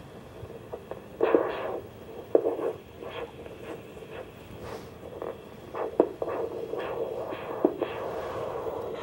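Doppler blood-flow monitor's speaker sounding the pulsing of a dog's artery under a steady hum. A few louder, irregular scraping bursts come through as tape is wrapped over the probe.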